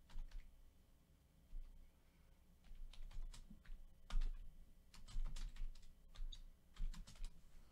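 Faint, irregular clicking of a computer keyboard being typed on, in short clusters of keystrokes.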